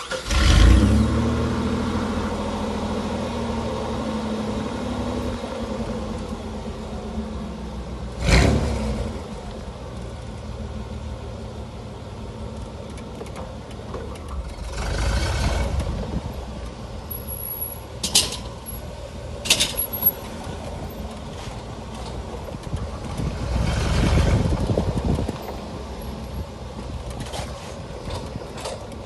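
Chevrolet Blazer 4.3 V6 Vortec engine starting and settling into a steady idle, its pitch easing down over the first few seconds. It is revved briefly about 8 s in, again around 15 s, and for longer around 24 s. Two sharp clicks come between the second and third revs.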